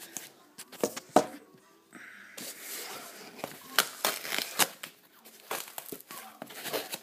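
Cardboard shipping box being handled and opened by hand: tearing and crinkling of tape and packing, with scattered sharp knocks and scrapes, the loudest about a second in.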